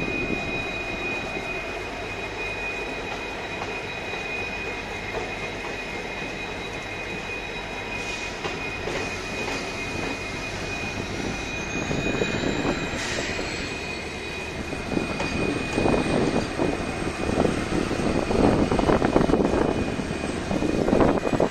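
An Indian Railways passenger train's coaches rolling slowly past, with a steady high whine running underneath. About ten seconds in, a second high tone rises in pitch. In the last third, the wheels' rumble and clatter on the rails grows louder.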